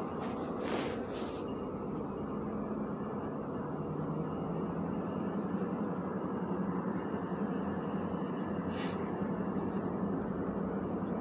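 A steady mechanical drone of distant engines, with a low hum that grows a little stronger about four seconds in.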